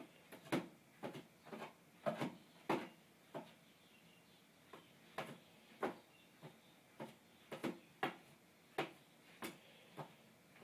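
A cat's claws scraping at glazed ceramic floor tiles, short sharp scratchy strokes about two a second in uneven clusters, the loudest about two to three seconds in.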